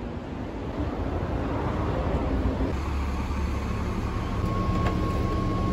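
A vehicle running with a steady low rumble. A thin, steady high tone starts near the end.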